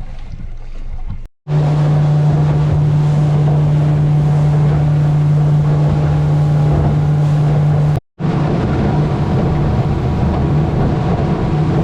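Motorboat engine running steadily under way, a strong, even low hum over the rush of wind and water; the sound drops out briefly twice.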